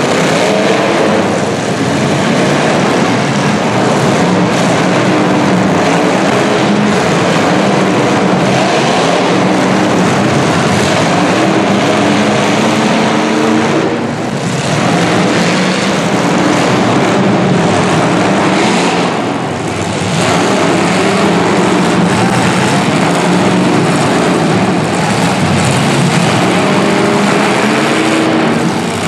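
Several demolition derby cars, 1980s full-size stock cars, with their engines running and revving hard at once, their pitches wavering and overlapping. The sound eases briefly twice, about halfway through and again a few seconds later.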